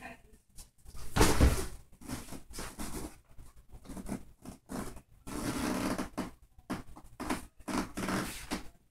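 A run of rustling and shuffling noises from a person moving close to the microphone, with a heavy thump about a second in.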